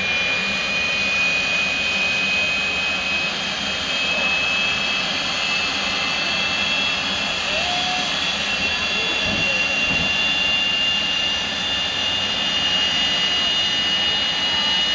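Green Mamba jet car's jet engine running with a steady roar, its high whine slowly rising in pitch as the turbine spools up.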